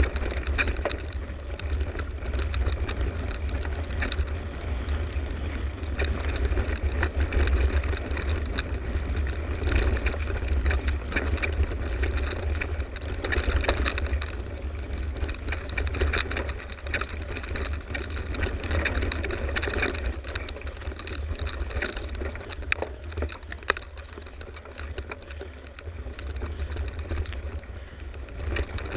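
Mountain bike ridden along a rough dirt singletrack: a steady wind rumble on the action camera's microphone, with tyre noise on the dirt and scattered clicks and rattles from the bike.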